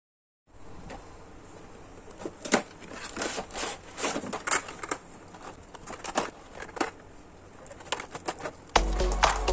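A glossy paper brochure being handled and flipped, giving irregular crinkles and rustles. Background music comes in near the end.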